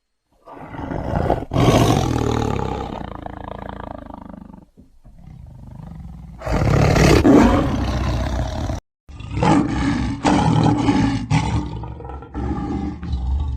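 Big cat roaring in a few separate clips cut one after another, each starting and stopping abruptly, with short gaps between them.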